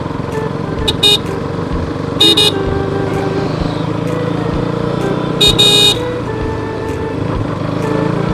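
A vehicle horn beeps over the steady running of a motorcycle's single-cylinder engine in slow town traffic. There is a quick double beep about a second in, another beep just after two seconds, and a longer beep around five and a half seconds.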